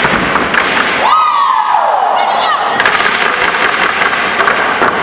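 Step team stomping on a gym floor over steady crowd cheering, with sharp knocks scattered throughout. About a second in, one long high call rises and then falls.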